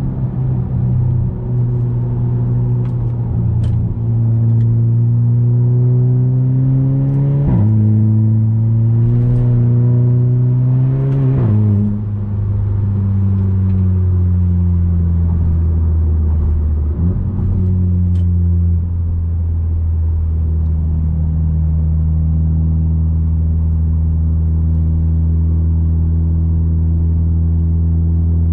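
Audi A3 8P 2.0 TFSI turbocharged four-cylinder, with a 2.5-inch downpipe and catback exhaust, accelerating hard: engine pitch climbs and drops sharply at two upshifts, about seven seconds in and again four seconds later. It then eases off and runs steadily at cruising speed.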